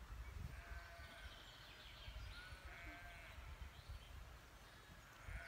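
Faint outdoor ambience: a low rumble with a few faint, high-pitched animal calls, one about three seconds in and another near the end.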